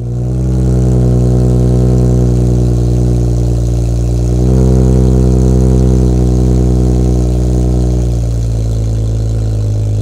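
BMW 435i's turbocharged N55 straight-six idling steadily through its exhaust. The note gets a little louder and fuller about four and a half seconds in and settles back about eight seconds in.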